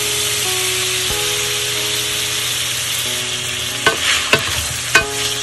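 Cocktail sausages and minced garlic sizzling in oil in a frying pan, stirred with a wooden spoon that knocks against the pan a few times near the end.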